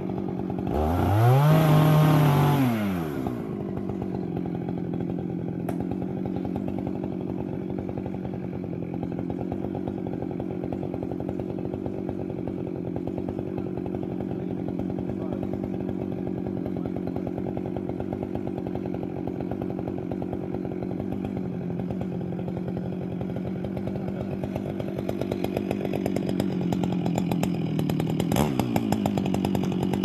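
Husqvarna chainsaw revving up hard, then running steadily at high speed as it cuts into the trunk of an oak being felled. Near the end the engine note begins to waver again.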